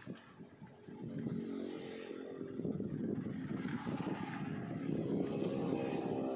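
An engine running, growing louder about a second in and settling into a steady low drone.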